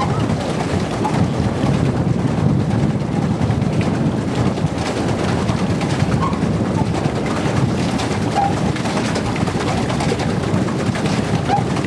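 Pedal boat's paddle wheel churning water in a steady, continuous rush, with a few short, faint bird calls over it.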